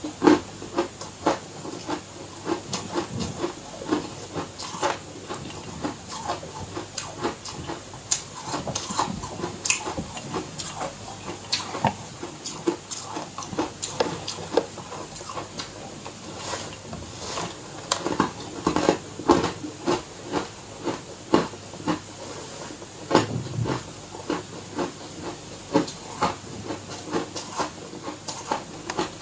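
Ice being bitten and chewed close to the microphone: a continuous run of crisp crunches, several a second.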